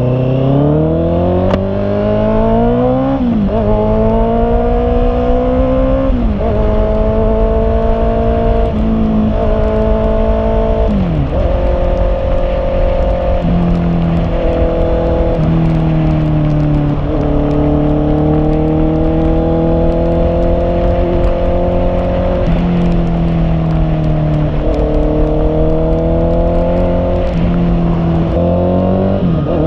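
Honda CB650R's inline-four engine pulling through the gears while riding. The revs climb steadily for the first three seconds, then drop sharply at an upshift, followed by several more shifts with stretches of steady or slowly rising revs between them.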